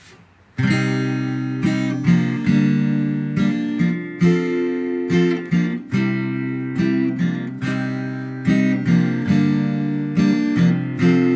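Acoustic guitar strumming chords, starting about half a second in with a steady pattern of strokes that ring on between them.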